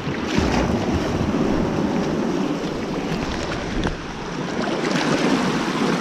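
A sea wave washing in at the shore, with water rushing and sloshing that swells twice, and wind buffeting the microphone.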